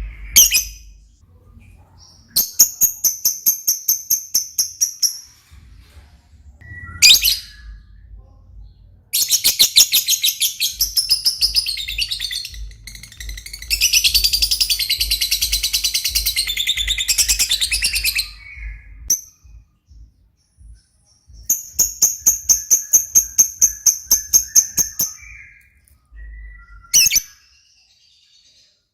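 Lovebird singing at length: runs of rapid high chirps at about five a second, long dense chattering trills in the middle, and a few single sharp calls between them.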